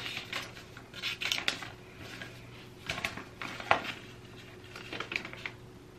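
A paper instruction leaflet and a cardboard pregnancy-test box being handled, crinkling and tapping in several short bursts.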